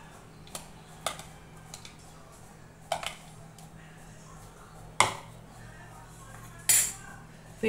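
A spoon clinking and scraping against a glass bowl as chopped onion is spooned out onto a plate: a few light clicks, the sharpest about five seconds in, and a brief scrape near the end.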